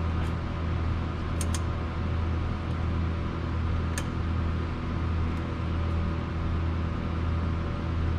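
Steady low machine hum with a faint whine above it, and a few light metallic clicks of a hand wrench working on a car's rear brake caliper about one and a half and four seconds in.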